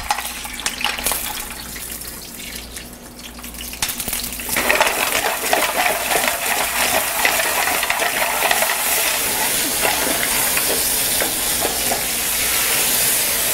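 Mussels and littleneck clams clattering into a hot steel sauté pan of olive oil, with scattered shell clicks. About four and a half seconds in, the pan breaks into a loud, steady frying sizzle.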